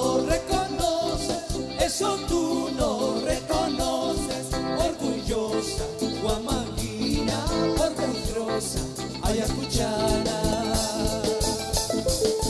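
Live band with electric guitar, bass and drum kit playing a carnaval ayacuchano, an Andean carnival tune from Ayacucho, over a steady drum beat.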